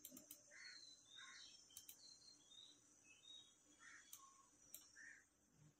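Near silence: room tone with a few faint short high chirps and several soft clicks scattered through it.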